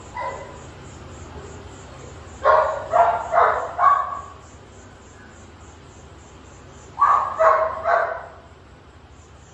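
A dog barking off-camera in two quick series, about four barks a couple of seconds in and three or four more near the end.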